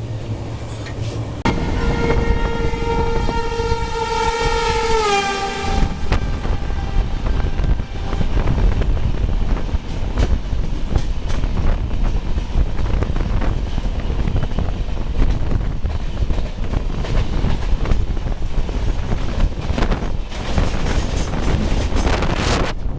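A locomotive horn sounds for about four seconds, its pitch dropping as it ends. It is followed by the loud rush and clatter of a train running at speed over the rails, with a denser burst of rattling near the end.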